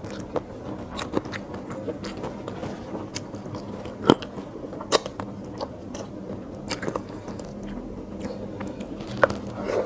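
Close-miked chewing of curry and rice, with wet mouth sounds and irregular sharp clicks and crunches; the loudest come about four and five seconds in.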